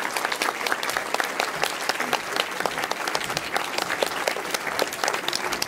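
Audience applauding steadily, with sharp claps from hands close by standing out from the dense clapping of the crowd.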